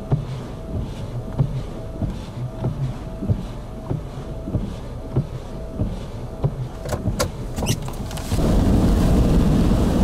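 Wind buffeting the microphone with irregular low thumps and a faint short beep repeating about every half second. A few sharp clicks come near the end. At the last second and a half a vehicle's steady, louder road and engine rumble takes over, heard from inside the moving vehicle.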